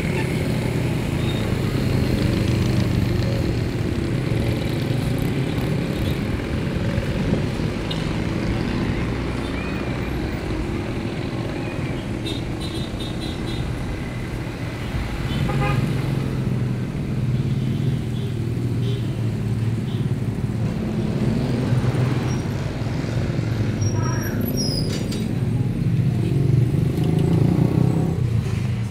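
Street traffic noise: motor vehicle engines running steadily with a low hum.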